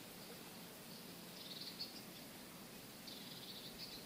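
Quiet outdoor ambience with an insect chirping in short, high, buzzy trills, one about midway and another near the end.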